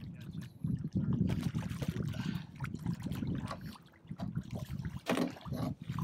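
Water splashing and lapping beside a small boat, in irregular sloshes with a louder splash about five seconds in, over a steady low rumble.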